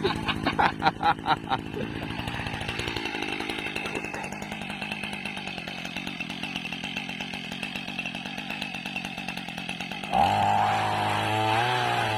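Small engine of a new motorized oil palm pole pruner (egrek) running, pulsing unevenly for the first second or so, then settling to a steady run. About ten seconds in it revs up to a higher, wavering pitch.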